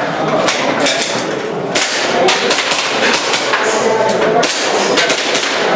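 Airsoft pistol shots fired in quick, irregular strings during a practical-shooting stage run, about a dozen sharp cracks.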